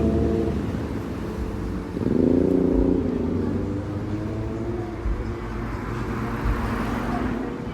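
Street traffic: a car engine runs and a vehicle drives past, its engine note swelling and falling about two seconds in, followed by the hiss of tyres on the road near the end.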